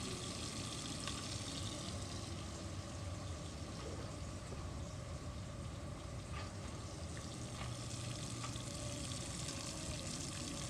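Charcoal being heated up: a steady hiss with a few faint crackles.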